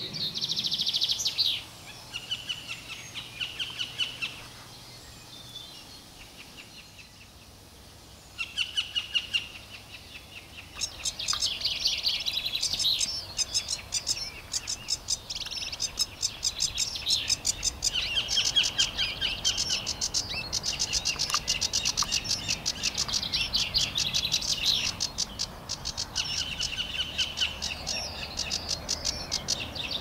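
Small birds chirping and singing in quick high trills, with a quieter lull a few seconds in and busier trilling from about ten seconds in.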